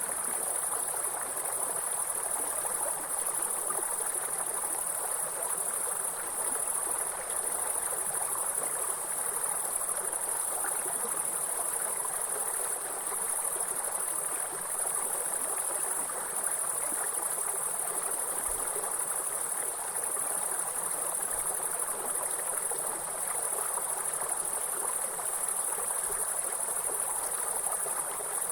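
Continuous high-pitched insect trilling over the steady rush of a running stream.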